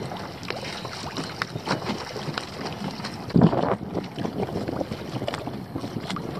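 Wind buffeting an outdoor action camera's microphone over shallow water, with irregular small knocks and water noise and one loud thump about three and a half seconds in.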